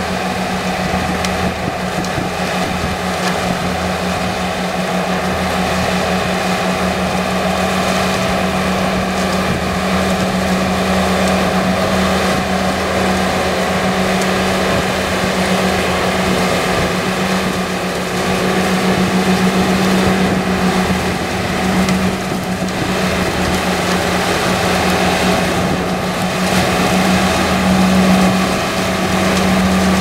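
Steady drone of farm diesel engines, a straddle grape harvester working the vine rows and a narrow vineyard tractor with trailer close by, with a constant low engine hum that swells slightly about two-thirds through and again near the end.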